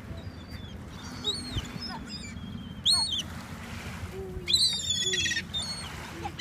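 Gulls calling: a high squawk about a second in, a louder one near three seconds, and a quick run of calls around four and a half seconds in, over a steady low rumble.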